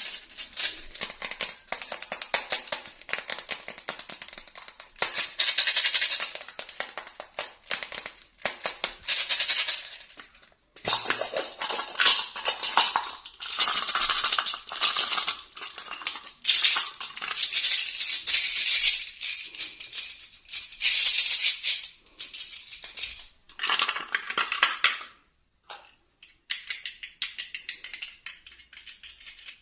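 Crinkling and rattling of toy packaging being handled during an unboxing, in bursts of dense clicks lasting a second or three, with short pauses between them.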